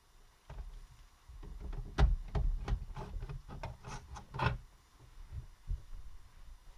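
A quick run of clicks and knocks with dull thumps as the optical drive is worked out of an HP Pavilion dv7 laptop by hand. The loudest knock comes about two seconds in, and a few fainter knocks follow.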